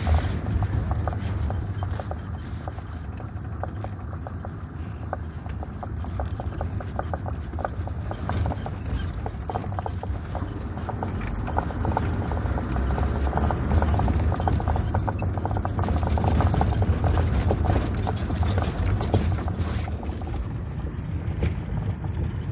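Volkswagen T4's 2.5-litre AJT five-cylinder diesel running, with a rapid tapping knock over a steady low hum, like a stick tapped quickly. The owner suspected worn engine mounts as the cause.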